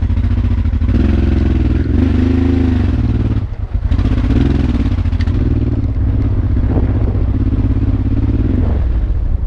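Honda Transalp V-twin motorcycle engine under way, its pitch rising and falling with the throttle, with a brief dip about three and a half seconds in.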